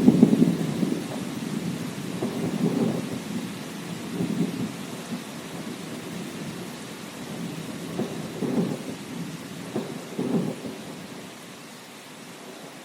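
Thunder rumbling over steady rain: a loud roll of thunder at the start that dies away, then several softer rumbles, the last about ten seconds in, after which only the rain's hiss remains.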